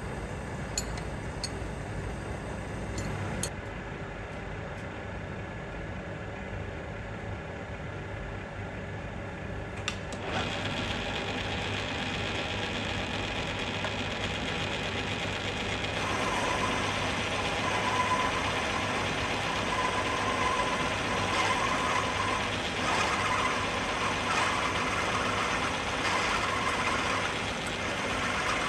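Milling machine running a 20 mm slot drill through a bracket: a steady motor hum with a few sharp clicks in the first seconds. The sound grows fuller about ten seconds in and louder again about sixteen seconds in.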